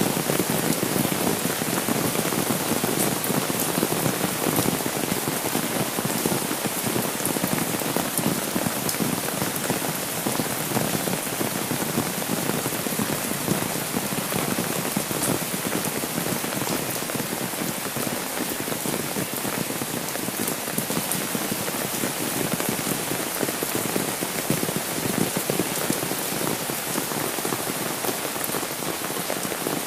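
Steady rain pattering on an umbrella held overhead and on the wet road.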